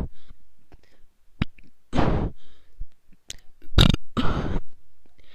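A bird making burping sounds: one burp about two seconds in, then two more close together near four seconds, with a few short sharp clicks between them.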